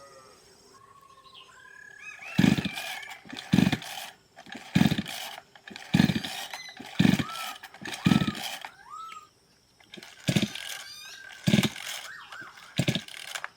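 Two-stroke chainsaw being pull-started on its new carburetor: about nine sharp pulls of the recoil starter, roughly one a second with a short pause partway, and the engine does not settle into running.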